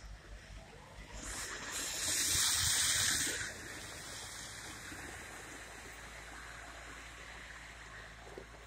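Tractor clearing snow with a snow blower: a low engine hum under a rushing hiss that grows loud for about two seconds, a second or so in, then settles to a steadier hiss.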